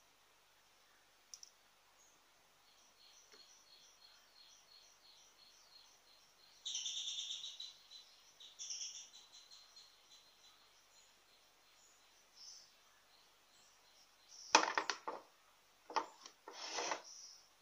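A bird chirping in a fast, even series of high notes, louder in two short bursts midway. Near the end come a few sharp clatters of kitchen things being handled.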